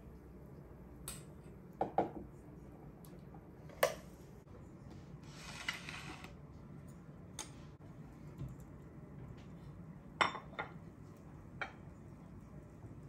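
Dishes and kitchen utensils clinking and knocking on a stone countertop: about half a dozen short clinks, the loudest about two seconds and ten seconds in, with a brief rustle around five seconds in.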